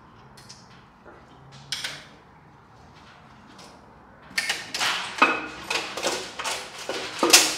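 Metal engine parts and tools being handled during an engine teardown: a couple of faint knocks, then from about halfway a quick run of loud metallic clanks and scrapes, the loudest near the end.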